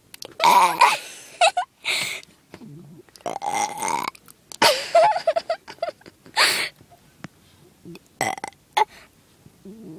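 A girl burping again and again: about eight burps, some short and a couple long and drawn out, lasting nearly a second.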